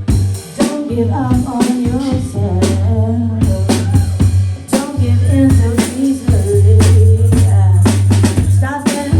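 Live band music: a drum kit playing a busy beat over a deep, sustained bassline, with a wavering melodic line on top.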